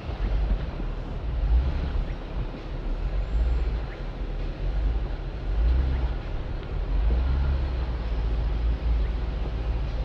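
2020 Jeep Gladiator Rubicon's 3.6-litre V6 and driveline at low speed on a rough dirt trail: a deep, uneven rumble that swells and eases as the truck works over the ground.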